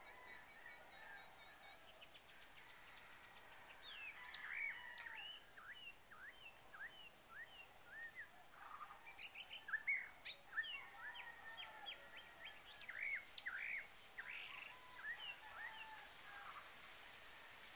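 Small birds chirping: a quick run of short, sweeping chirps and whistles that starts about four seconds in and fades near the end, with a brief rattling burst about halfway, over faint steady background hiss.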